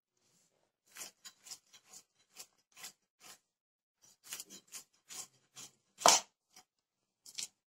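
Small fish being cut and scraped on an upright floor-mounted boti blade: a run of short, sharp strokes, about two a second, with one much louder knock about six seconds in.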